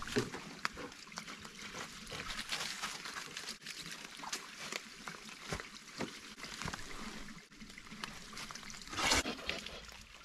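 Rustling and crunching of dry fallen leaves as a person and a dog move about on the leaf-covered ground, an irregular run of small crackles, with one louder rustle about nine seconds in.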